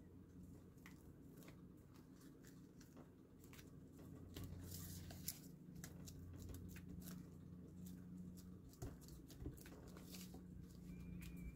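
Faint rustling and small taps of paper being handled, folded and pressed flat by hand on a cutting mat, over a low steady hum.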